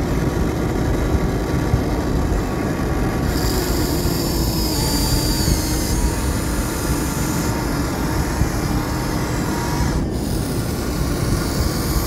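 Small electric motors and plastic gears of remote-control toy construction vehicles whining and grinding steadily, with a higher motor whine joining about three seconds in for some four seconds.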